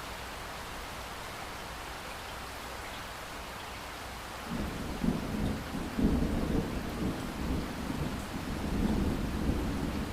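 Steady rain hiss, then a long roll of thunder that comes in about halfway through, is loudest a second or so later, and keeps rumbling.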